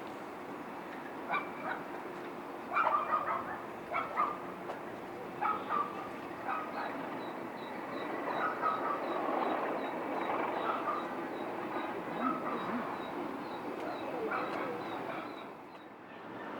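Animal calls: several short pitched cries, some in quick pairs, mostly in the first six seconds, over a steady background. A faint regular ticking, about two a second, runs through the middle.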